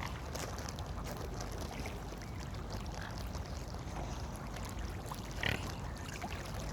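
Steady splashing and lapping of lake water with a few short waterfowl calls, the loudest about five and a half seconds in.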